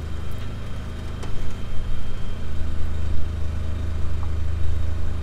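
A motor vehicle's engine running steadily with a low, even hum.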